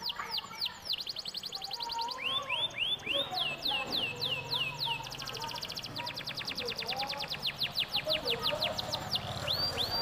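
Domestic canary singing a long, unbroken song. Slow series of high falling whistled notes alternate with fast rolling trills, the longest of which lasts about four seconds from about midway.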